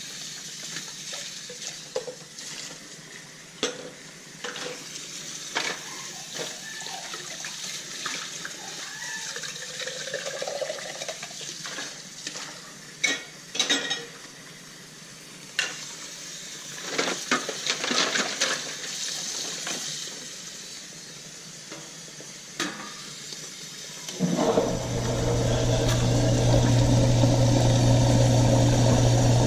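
Dishes and cutlery clinking in a sink under running tap water. About 24 seconds in, a loud, steady electric motor hum starts and keeps going.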